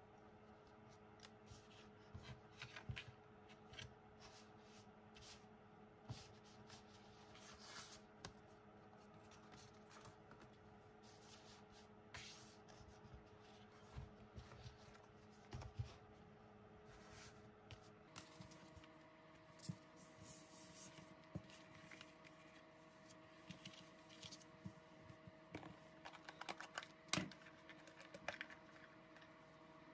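Faint handling sounds of photocards and a hardcover album on a table: light rustles, card-on-card slides and soft taps, with a sharper tap near the end.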